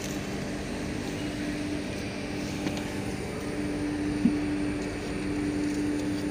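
Steady mechanical hum of the Kochi Water Metro electric boat's machinery, with a constant low drone. One short low sound stands out about four seconds in.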